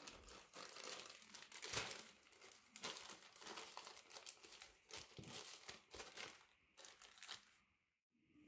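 Plastic packaging crinkling and rustling in irregular bursts as a soft-wrapped toiletry packet is handled and pushed in among other items; it dies away shortly before the end.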